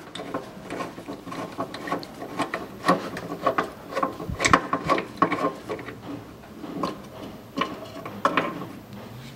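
Ratchet wrench clicking in irregular runs, with small metal knocks, as it loosens the threaded fill plug on a rear differential.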